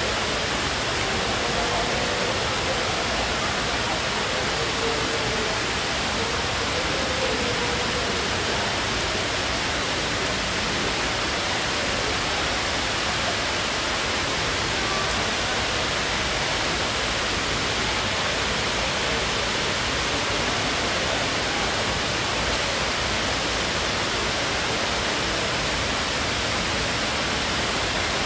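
Man-made waterfall: water cascading down a tall wall into the pool below, a steady, even rush that never changes.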